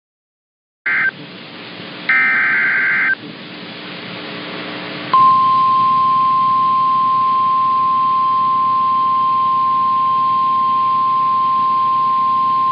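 Emergency alert tones over radio hiss: a brief burst of SAME header data tones about a second in and a longer one at two seconds, then about five seconds in the NOAA Weather Radio 1050 Hz warning alarm, one steady high tone.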